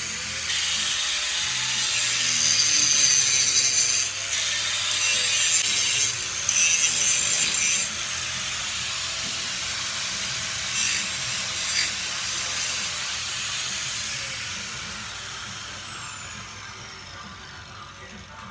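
Handheld grinder cleaning up the steel motor mounts on a go-kart frame, its high motor whine dipping and recovering as it bites into the metal. About 14 seconds in the grinder is let off and its whine falls steadily as it spins down.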